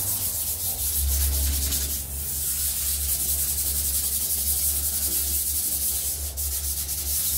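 Sanding light surface rust off a new sheet-steel gate: a steady, continuous scratching scrub of abrasive on metal.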